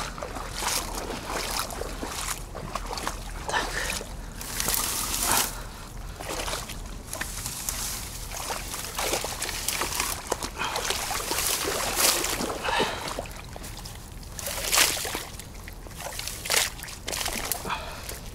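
Shallow water sloshing and splashing irregularly, with a handful of louder splashes spread through.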